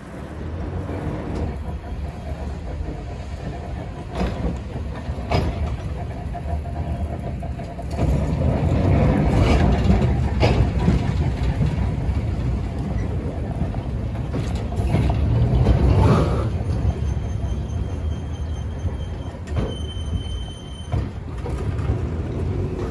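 Sydney P-class tram 1497 running past on its rails: a deep rumble that swells as it goes by, with sharp clicks from the wheels. A brief high ringing tone sounds near the end.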